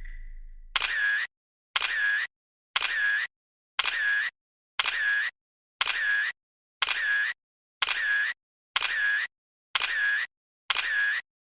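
A repeated, edited-in sound effect: eleven identical short bursts about one a second, each a sharp click followed by half a second of hiss with a dipping tone, with dead silence between.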